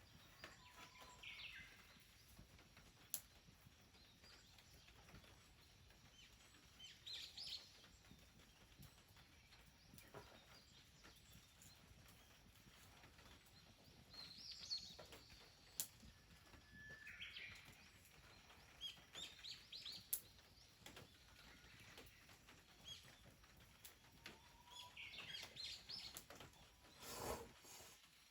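Faint wild bird song: short chirping phrases repeated every few seconds, with a few sharp clicks in between.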